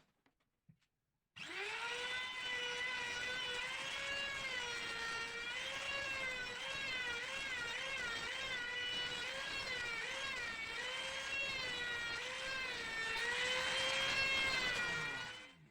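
Small electric motor of a handheld power tool whining as it runs, its pitch wavering slightly, starting abruptly about a second and a half in and winding down near the end.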